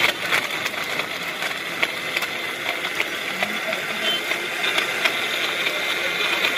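Electric countertop blender running steadily, blending mango juice, with frequent small clicks over its motor noise.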